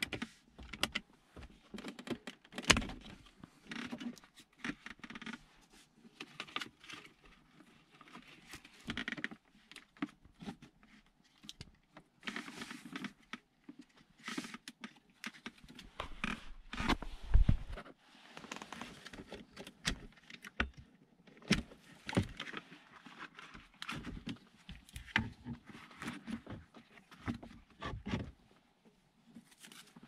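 Irregular clicks, knocks and scrapes of hands and small tools working on a Mercedes power-window switch and its plastic trim, with a few louder knocks.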